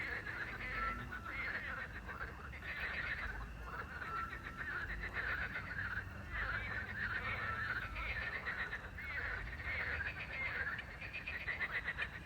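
Chorus of frogs croaking at night, many rattling calls overlapping without a break, with crickets chirping beneath. A short, steady whistled note, the little owl's call, sounds three times, every three seconds or so.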